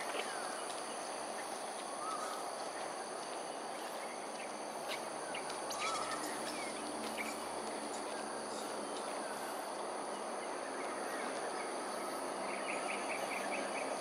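Outdoor ambience: steady high-pitched insect trilling over a constant distant urban hum, with a few short chirps and a quick run of ticks near the end.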